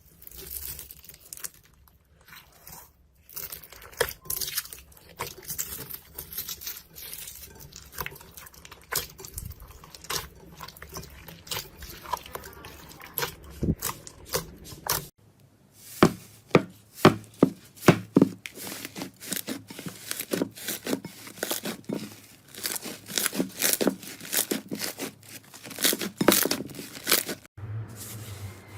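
Slime being squeezed and poked by hand, giving a dense run of small crackling clicks and pops. About halfway through, the pops become sharper and louder.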